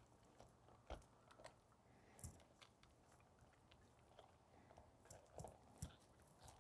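An American Akita puppy and a golden retriever gnawing on a bare tree branch: faint crunching with scattered sharp cracks of wood. The loudest cracks come about a second in, just past two seconds, and near the end.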